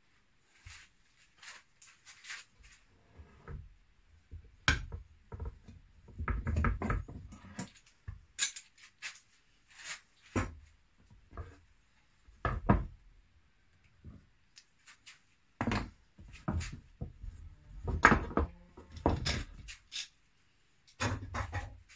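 Metal bar clamps being unscrewed, taken off a glued wooden workpiece and set down on a wooden workbench. It comes as an irregular series of clicks, knocks and clatters, with handling noise in between.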